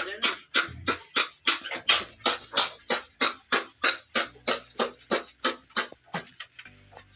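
A sick piglet's rapid, laboured breathing: short noisy breaths about three to four a second that fade and stop near the end. It is the sign of a respiratory infection with cough and sore throat in a piglet a few days old.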